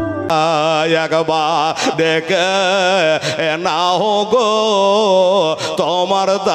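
A man's voice singing a Bengali gojol (Islamic devotional song) into a stage microphone, in a slow, heavily ornamented line that wavers and slides in pitch. A short instrumental tune cuts off just as the singing begins.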